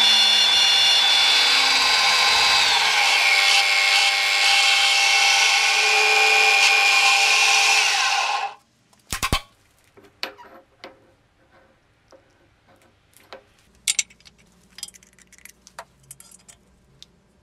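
A power tool running steadily with a whining tone that dips in pitch briefly, then switched off suddenly about eight and a half seconds in. After it come a few light clinks and handling sounds.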